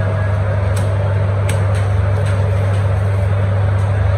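A loud, steady low machine hum with a noisy hiss over it and several faint light clicks.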